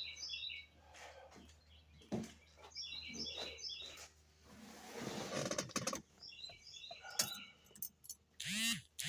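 A small bird chirping in three short bursts of repeated notes, over a few scattered clicks and knocks. No starter cranking or engine is heard: the Cuda does nothing when a start is tried.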